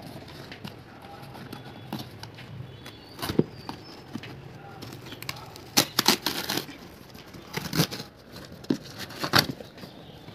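A cardboard shipping box and its brown paper wrapping being torn open by hand. There are several short ripping sounds, a burst about six seconds in and another near the end, with rustling and handling of the packaging between.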